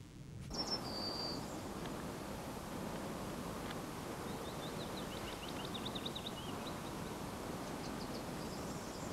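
Outdoor lakeside ambience: steady background noise with small birds chirping, a short high whistle about half a second in and a quick trill of chirps around the middle.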